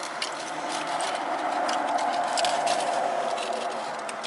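Aluminium foil taco wrappers crinkling and crackling as they are handled and opened, in many quick irregular crackles, over a steady rushing hiss.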